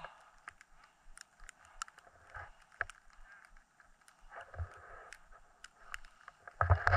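Skis swishing and scraping across snow in a series of turns, with scattered sharp clicks; the last swish, near the end, is the loudest, with a low rumble under it.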